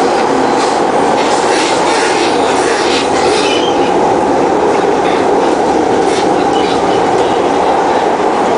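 SMRT C151 metro train heard from inside the carriage while running through the tunnel: a steady, loud rumble of wheels on rail, with a few faint clicks. A brief faint high wheel squeal comes about three seconds in.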